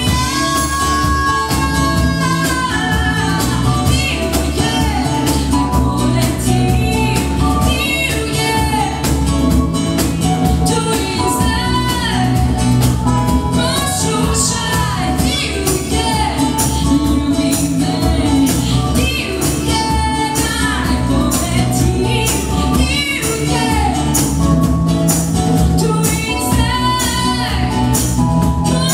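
Live acoustic band playing a song with a steady beat: a woman sings the lead over acoustic guitar, keyboard, electric guitar and hand percussion.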